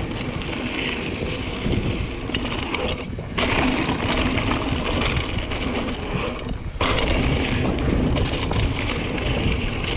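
Mountain bike riding down a dry dirt trail: tyres rolling and crunching over dirt and gravel, with wind buffeting the camera microphone and scattered clicks and rattles from the bike. The noise drops briefly twice, about three seconds in and again near seven seconds.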